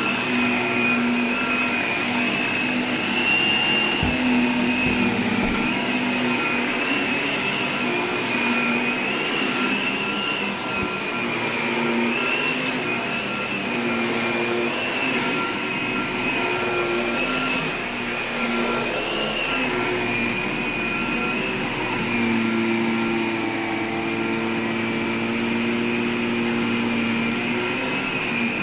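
Upright vacuum cleaner running continuously while it is pushed back and forth over carpet, a steady motor noise with a high, slightly wavering whine.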